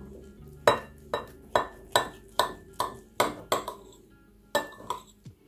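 Table knife and fork clinking against a ceramic plate while cutting a baked meat roll: a quick series of sharp clinks, about two a second, with a short pause near the end.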